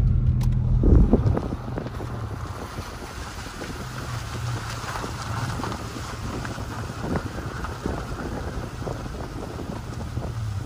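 Vehicle rolling slowly along a dirt and gravel road: steady engine and road rumble with scattered clicks and pops of gravel under the tyres, and a heavier thump about a second in.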